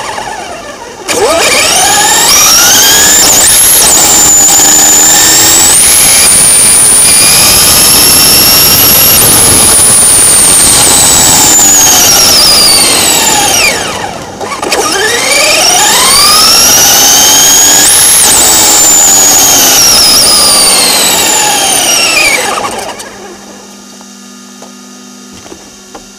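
Traxxas Rustler RC truck's 4000 kV brushless motor and gears whining under full throttle, the pitch climbing as it accelerates, holding high, then falling as it slows; it does this twice, the second pass dying away about 23 seconds in.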